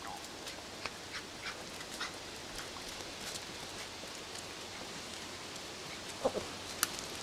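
Steady outdoor hiss with scattered faint high chirps. About six seconds in, a Welsh springer spaniel puppy gives a short whimper, followed by a sharp click.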